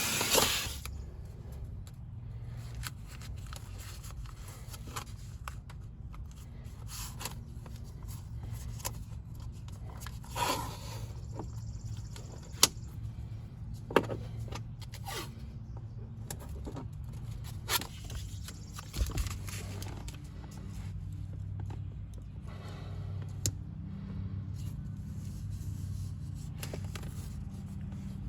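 A vacuum cleaner running stops within the first second; after that come scattered small clicks and scrapes of hand work over a low steady hum.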